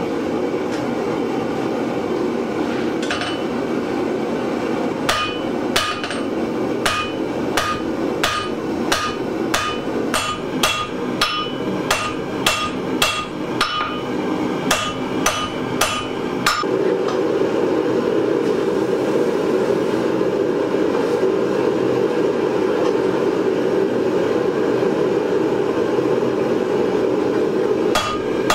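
Hand hammer striking a hot steel flower stem on an anvil to taper it down, about two blows a second, each with a bright anvil ring. The blows stop a little over halfway through and start again at the very end. A steady gas-forge roar runs underneath and grows louder once the hammering stops.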